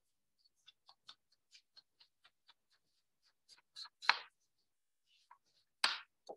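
Foam ink blending tool dabbed on an ink pad and rubbed over cardstock: a faint, quick series of soft taps and scratches, with a few louder scrapes about four and six seconds in.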